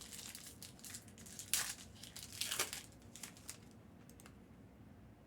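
Foil trading-card pack wrappers crinkling as they are handled, with the loudest crackles about one and a half and two and a half seconds in. The crinkling stops at about three and a half seconds.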